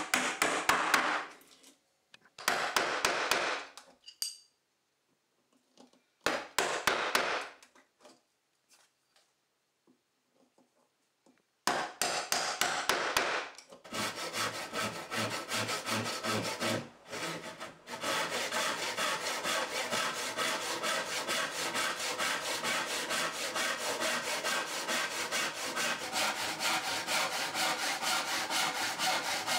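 A chisel being worked into a mortise in a pine beam, in three short bursts of strokes. From about twelve seconds in, a large backsaw rips down the cheek of a tenon with fast, steady strokes.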